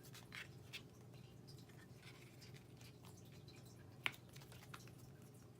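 Near silence with faint small ticks and taps from hands working cardstock leaves and Tombow liquid glue onto a card, and one sharper click about four seconds in, over a low steady hum.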